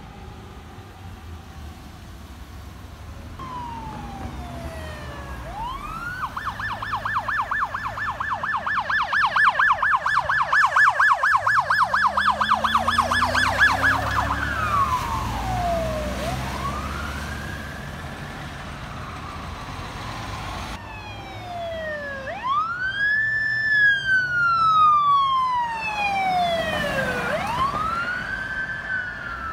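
Emergency vehicles' electronic sirens going by. A slow wail switches to a rapid yelp for about eight seconds, louder as the vehicle passes, then drops back to the wail. Another siren wails with two overlapping sweeping tones as it approaches near the end.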